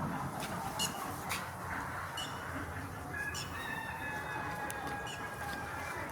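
Sonali chickens calling, with a few sharp clicks in the first three seconds and one long, drawn-out call starting about three seconds in and held almost to the end.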